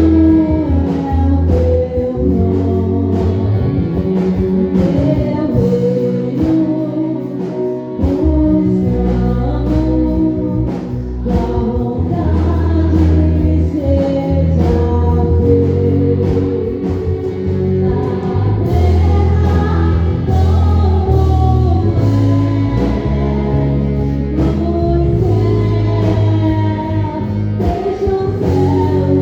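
Live gospel worship music: singers over a band with bass, guitar and a steady drum beat.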